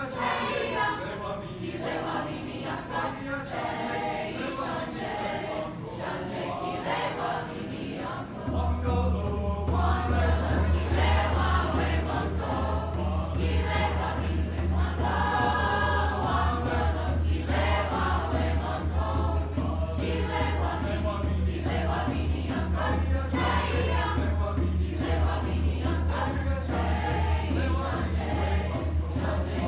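Mixed choir singing. About eight seconds in, a loud steady low hum comes in under the voices and holds.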